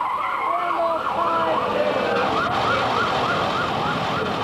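Siren wailing in rising-and-falling sweeps that quicken to a fast yelp, about four a second, roughly two seconds in, over a steady wash of street noise.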